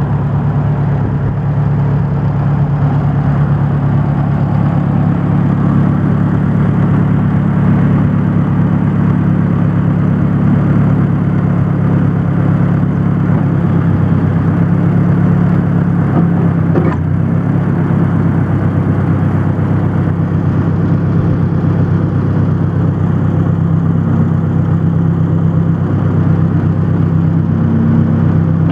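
Ford 800 tractor's four-cylinder engine idling steadily.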